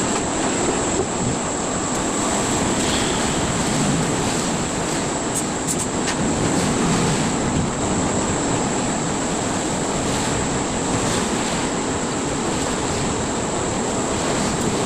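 Steady machine noise with a constant high-pitched whine, and a few faint clicks about five to six seconds in.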